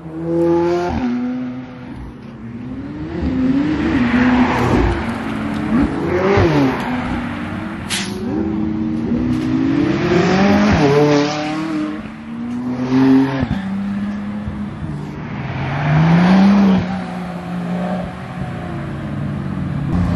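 Supercars accelerating hard past one after another, among them a LaFerrari and a McLaren: each engine's pitch climbs and drops back through quick gear changes, several times over. A single sharp crack about eight seconds in.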